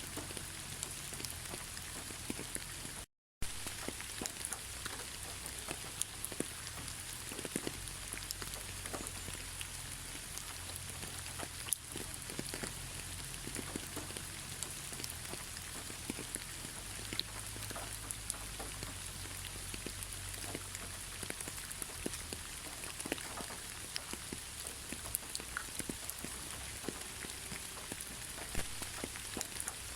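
Steady rain falling, a dense hiss with many separate drops pattering. The sound cuts out completely for a split second about three seconds in.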